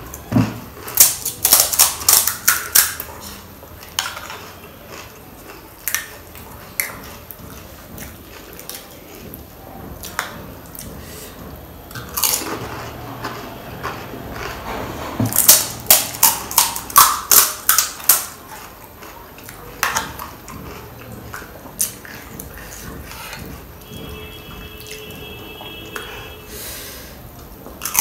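Close-miked chewing of panipuri (golgappa): crisp puri shells crunching in quick runs of sharp crunches, once a second or so in and again around fifteen seconds in, with scattered single crunches and quieter chewing in between.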